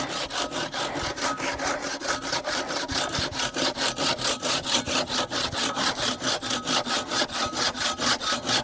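Large hand saw cutting through firewood, its teeth rasping in quick, even push-and-pull strokes, about six a second.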